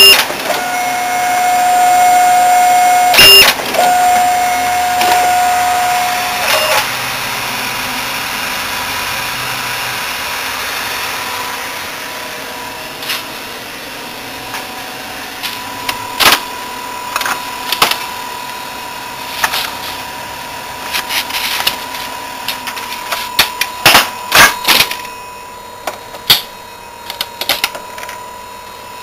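Xerox A Color 935 colour copier running with its covers off: motors and drives whirring with a steady high whine at first, then a steadier hum and tone. A run of short, sharp clicks and clacks from its mechanisms comes in the second half.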